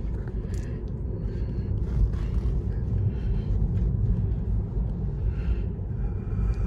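Steady low road and tyre rumble heard inside the cabin of a Tesla electric car driving along a street at about 25 mph, with no engine note.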